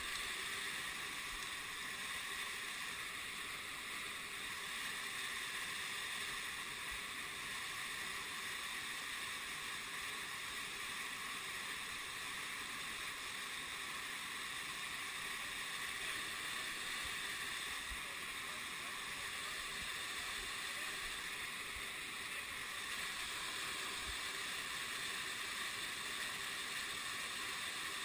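Waterfall rushing steadily.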